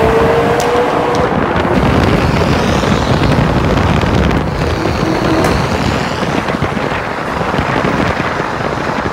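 Cars driving at speed through a road tunnel: a steady, loud mix of engine and exhaust noise with road roar, the sound enclosed by the tunnel.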